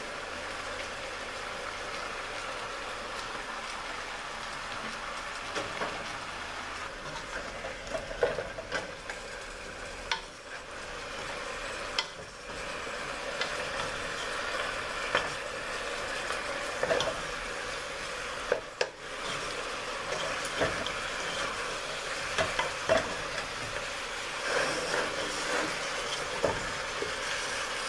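Oxtail pieces sizzling as they brown in hot oil in a pot, with a wooden spoon stirring and turning them, scraping and knocking now and then against the pot.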